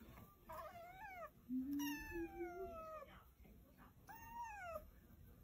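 Black kitten mewing three times in high, thin calls: a short rising one, a longer one falling in pitch, then a short arched one. A low rising hum sounds briefly beneath the second call.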